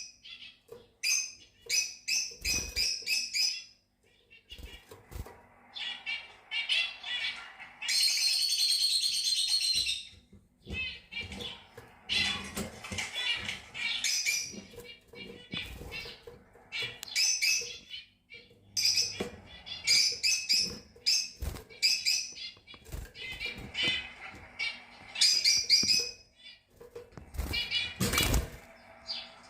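Fischer's lovebirds chirping in quick, repeated high calls, with a dense stretch of chattering about eight seconds in and a few dull thumps, the loudest near the end.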